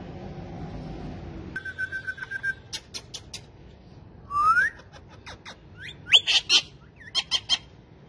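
Ringneck parakeets calling, starting about a second and a half in: a run of quick chirps and sharp calls, a rising whistle at about four seconds, and loud harsh squawks near the end.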